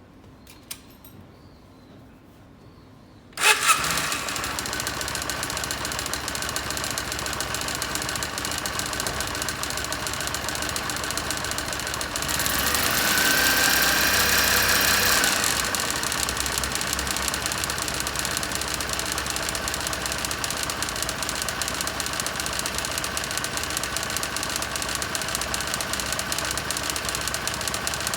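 Kawasaki W400 parallel-twin engine starting about three seconds in, then idling with a mechanical knocking noise, revved once briefly near the middle with a rising whine before settling back. The abnormal noise is thought to be from the bevel gears of the cam drive.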